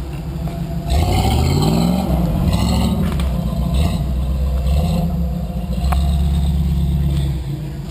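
Off-road Jeep's engine revving up about a second in, rising in pitch, then held at high revs under load as it climbs through the trail obstacle, easing off near the end.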